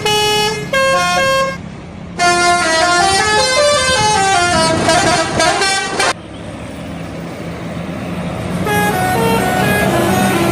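Indonesian bus telolet horn, a multi-tone melody horn, playing quick tunes of stepped notes. There is a short phrase, a brief break about two seconds in, and a longer phrase that stops about six seconds in. The tune starts again near the end, over a low engine hum.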